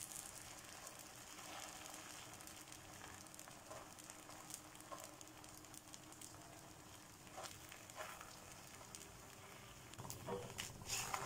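Maida dosa batter sizzling faintly on a hot dosa griddle while a steel ladle spreads it thin, with light scrapes of the ladle against the pan that grow louder near the end.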